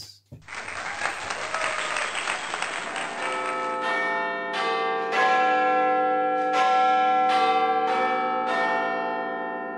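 End-of-video outro music: a hissing wash of noise, then from about four seconds in a series of bell-like chimes struck roughly once a second, each ringing on and slowly fading.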